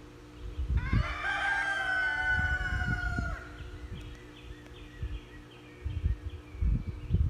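A rooster crows once, a single call of about two and a half seconds that rises, holds, then falls away at the end. Later come faint short chirps and low thumps.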